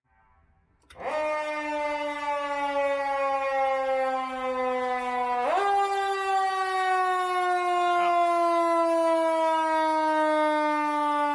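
Fire engine siren sounding a long, low steady tone that starts abruptly about a second in. Its pitch sinks slowly, jumps up about halfway through, then sinks slowly again.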